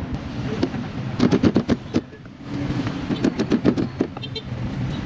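Street traffic: motorbike and car engines running steadily, with two quick runs of sharp knocks, one about a second in and one about three seconds in.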